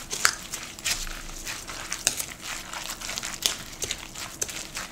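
A spoon stirring and tossing a wet mix of shredded zucchini, glass noodles and raw egg in a glass bowl, with irregular clicks and scrapes of the spoon against the glass.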